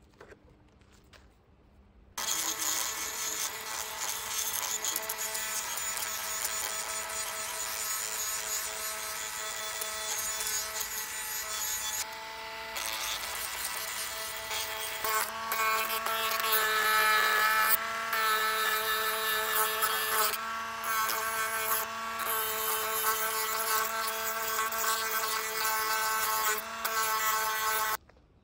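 Dremel rotary tool running with a small wire-brush wheel against a rusty steel hinge, scrubbing off rust: a steady motor whine with the rasp of the bristles on metal. It starts suddenly about two seconds in, eases briefly about halfway, then runs louder until it stops suddenly near the end.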